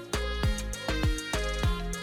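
Background music with a steady beat: deep drum hits that drop in pitch about twice a second over held notes.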